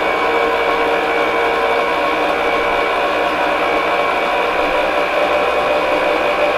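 Hamilton Beach stand mixer running steadily on its low speed, a constant motor hum with a few held tones, as the beater creams Greek yogurt with sugar in a steel bowl.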